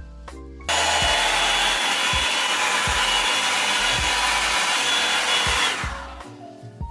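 Revlon One-Step Volumizer hot-air brush running on its high setting: a loud, steady rush of air with a faint motor whine. It starts suddenly about a second in and fades out near the end, over background music with a beat.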